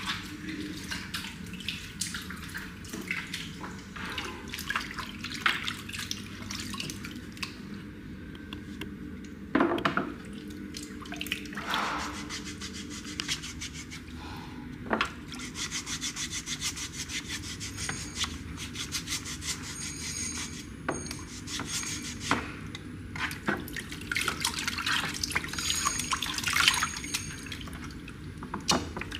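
Foot-bath water splashing and dripping in a plastic basin as hands wash and rub a pair of feet: a run of small, irregular splashes and drips.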